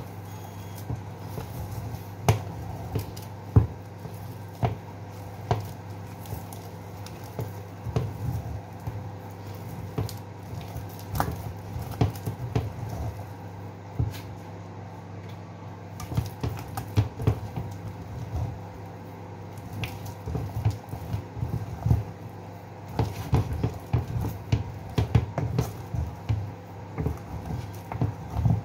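Wooden spoon stirring and turning thick potato-and-oat fufu dough in a nonstick saucepan: irregular knocks of the spoon against the pan and wet squelches of the dough, over a steady low hum. This is the stage of working the fufu on the heat until it becomes smooth and stretchy.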